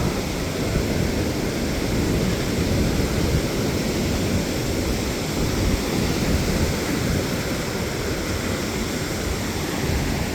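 Pacific surf breaking on the beach, a steady rushing noise, with wind buffeting the microphone.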